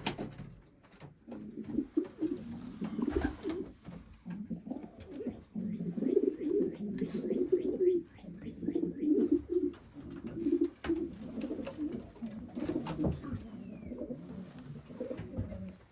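Many pigeons cooing at once, an overlapping chorus of low, rolling coos, with a couple of sharp knocks.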